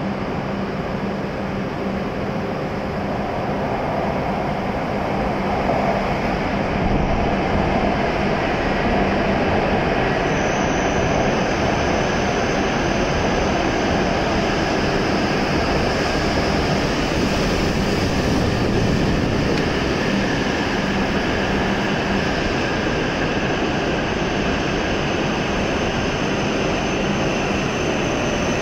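W7 series Shinkansen train pulling into a station platform and slowing: a continuous rush of running noise that swells a few seconds in and holds steady, with a high thin whine joining about a third of the way through.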